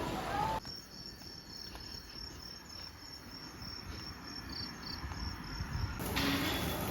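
An insect chirping in a steady rhythm: short, high chirps, about three a second, cricket-like. They start about half a second in and stop abruptly near the end.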